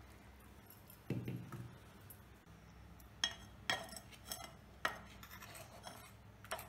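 Dishes and eating utensils clinking: a dull knock about a second in, then several sharp clinks with a short ring, typical of food being served onto plates.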